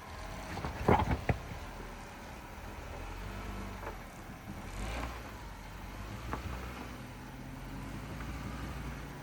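2014 Jeep Wrangler Rubicon's 3.6-litre V6 running at a low, steady crawl as the Jeep creeps down a steep rocky slope, with a few sharp knocks about a second in and fainter ones later.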